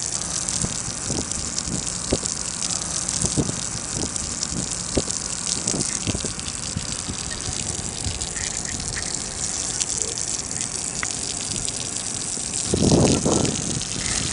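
Garden hose spraying water: a steady rushing hiss, with a louder low rush near the end.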